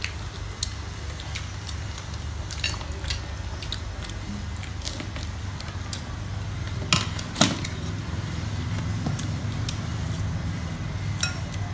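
Forks and a spoon clicking against metal trays and a glass bowl as food is picked up, with two sharper clinks about seven seconds in, over a steady low hum.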